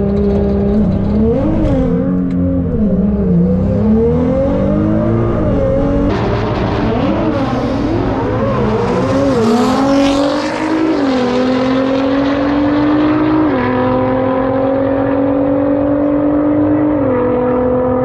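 Nissan GT-R R35's twin-turbo V6 revving up and down on the start line, then launching at full throttle about halfway in and pulling hard through its gears. The pitch climbs steadily in each gear and drops sharply at the two upshifts near the end.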